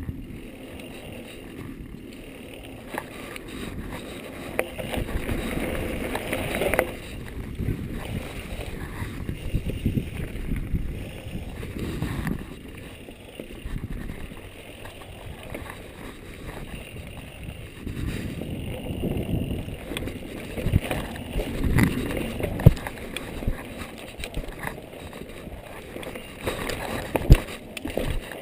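Mountain bike riding fast down a dirt trail: tyres rolling over the ground with the bike rattling over bumps, and a few sharp knocks, the loudest near the end.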